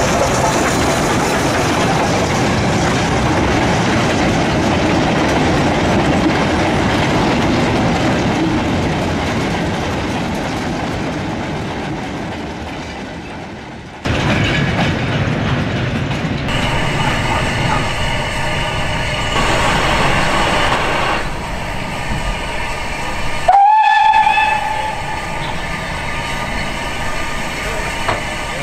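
A Stanier 8F 2-8-0 steam locomotive rolls past hauling a rake of goods wagons, and the rumble and clatter of the wagons over the rails slowly fades away. After a cut, a steam locomotive stands at the platform with steam hissing, and about two-thirds of the way through it gives one short steam whistle blast that rises a little in pitch.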